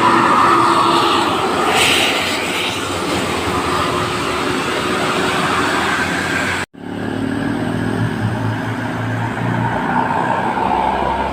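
Road traffic with a tour bus going by: steady engine and tyre noise. It is cut off abruptly about two-thirds of the way through and resumes at once.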